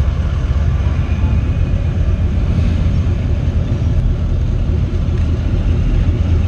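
Trucks driving slowly past with a steady low engine rumble. A lifted Ford Super Duty pickup rolls close by in the second half.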